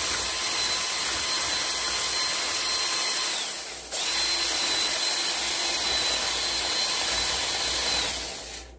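A small electric motor whirring at a steady speed with a thin whine, then winding down about three and a half seconds in. It starts again straight away and winds down again near the end.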